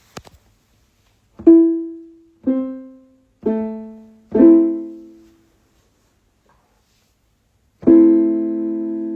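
Piano played one key at a time: four single notes about a second apart, each struck and fading away, then after a pause a chord about eight seconds in that rings on and slowly fades.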